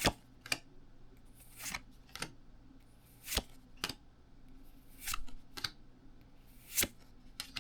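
Pokémon trading cards being slid one by one across the stack of a freshly opened booster pack: about ten short, light card-on-card swishes, often in pairs half a second apart, over a faint room hum.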